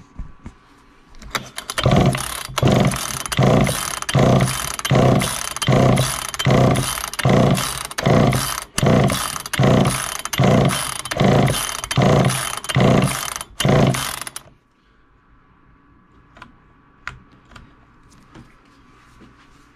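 1969 Homelite EZ Automatic chainsaw's two-stroke engine being cranked on its recoil pull-starter: about eighteen quick, even pulls in a row, each a short whirring turn-over, without the engine firing. The pulls stop suddenly near the end, leaving a few faint clicks.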